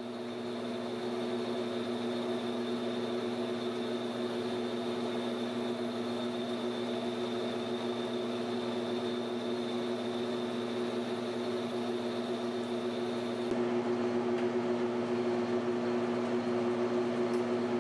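Metal lathe (Precision Matthews PM1236T) running steadily with a hum, turning a titanium ring blank. It comes up to speed in the first second or so; about three-quarters of the way through, a faint high whine drops out and the sound gets slightly louder.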